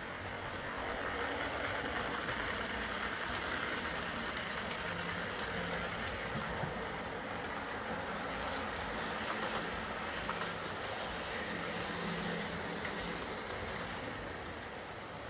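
Lima Class 08 shunter OO gauge model locomotive running on the track: the steady whirr of its small DC motor and gears with the wheels rolling on the rails, a higher whine rising over it about a second in and again near the end. The motor is never quiet, but it runs quieter and smoother now that the rods, cranks and lubrication are sorted.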